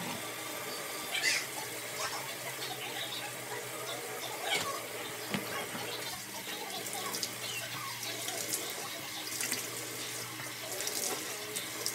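Bathroom sink tap running steadily while water is splashed onto the face by hand, with small irregular splashes over the flow.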